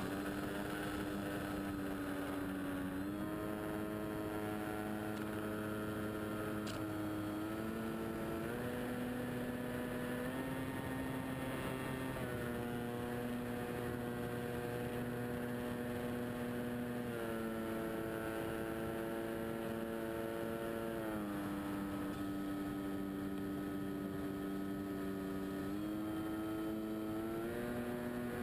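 Engine of a radio-controlled scale de Havilland Tiger Moth model, heard from on board with propeller and wind noise. The engine note holds steady, then shifts up or down several times as the throttle is changed.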